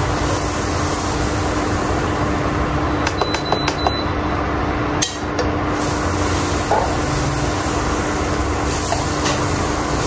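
Butter sizzling as it melts in a hot stone-coated frying pan, stirred around with chopsticks. A quick run of light chopstick taps on the pan comes about three seconds in, and one more tap shortly after.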